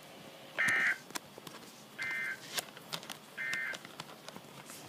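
NOAA Weather Radio sending three short bursts of warbling SAME data tones about 1.4 s apart: the EAS end-of-message signal that closes the severe thunderstorm warning. Faint crackling clicks run underneath.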